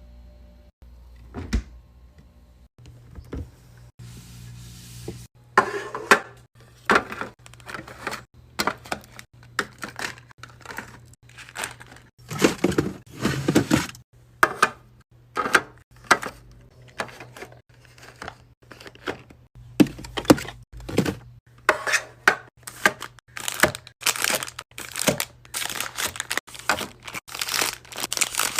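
Packaged drinks and snacks being unpacked and set into a mini fridge: irregular knocks, clinks and plastic or wrapper crinkling, starting a few seconds in and then coming thick and fast. A low steady hum runs underneath.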